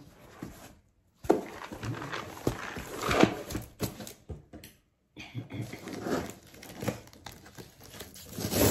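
Cardboard shipping box handled on a tabletop: irregular rustling, scraping and light knocks as it is turned over, set down and pressed on. The sound drops out completely twice, briefly, about a second in and near five seconds in.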